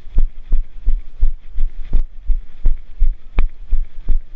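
Steady low thumps, about three a second, from footsteps jolting a body-carried camera as the euphonium player marches along the field, with one sharper click about three and a half seconds in.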